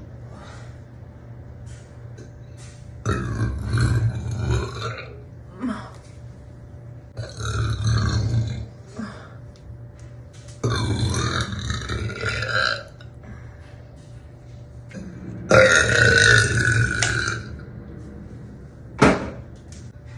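A woman's deep burps, four long ones of about two seconds each, the last the loudest. They are followed near the end by a short sharp click.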